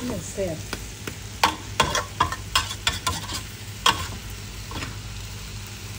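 Metal spatula scraping and knocking against a wok while glass noodles, pork belly and bamboo shoots are stir-fried, with a low sizzle underneath. The strokes come irregularly, about every half second, with a longer gap near the end.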